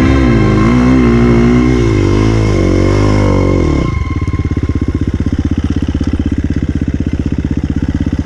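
Dirt bike engine revving, its pitch rising and falling with the throttle for about four seconds, then dropping suddenly to a low, steady putter at low revs.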